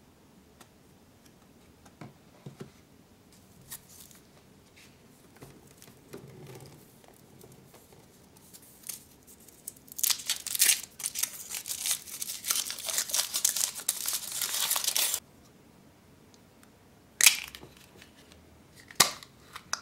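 Foil wrapper of a milk-chocolate surprise egg being peeled off, a dense crinkling and tearing that lasts about five seconds mid-way, after faint taps of the eggs being handled. Near the end come two sharp snaps as the hollow chocolate shell is broken in half.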